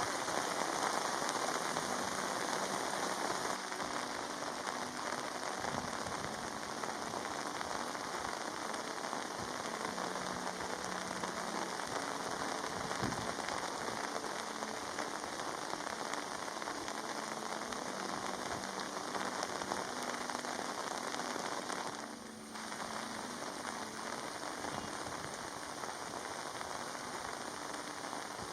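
Monsoon rain falling steadily and pattering on surfaces, with a short dip in level about three-quarters of the way through.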